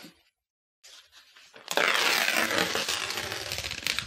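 Loud rustling and crinkling of a white protective wrapping sheet being lifted up and off a computer screen, starting about a second and a half in after near silence.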